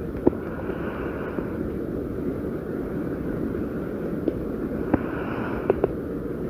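Human stomach growling: a steady low rumble with a few small clicks, swelling higher twice, about a second in and again about five seconds in.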